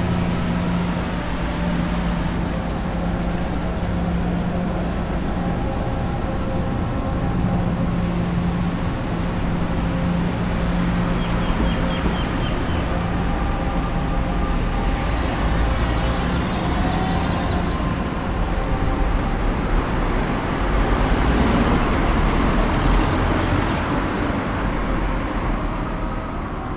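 Road traffic: a steady din of vehicle engines running and passing, with a low rumble, swelling a little about twenty seconds in.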